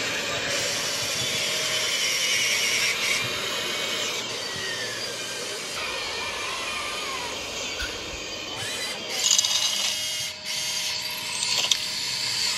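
Small electric motors of a model excavator whirring as the arm digs, lifts and swings a bucket of soil, with a couple of brief louder knocks in the second half.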